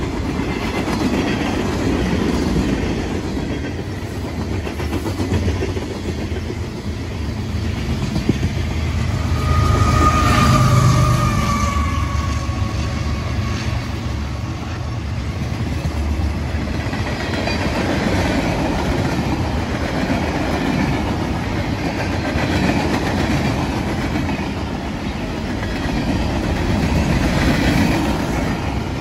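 Freight train cars, covered hoppers and gondolas, rolling past on the track: a steady rumble and clatter of wheels and car bodies, with a brief whine about ten seconds in.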